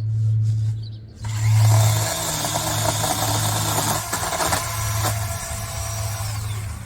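Chainsaw idling, then opened up to full throttle about a second in and run hard, as in cutting wood, before easing back toward idle near the end.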